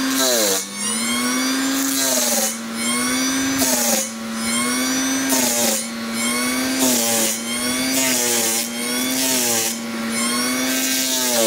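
Forestry mulcher running hard, its engine pitch dipping and recovering every second or two as the mulching head cuts into trees, with a burst of shredding noise each time.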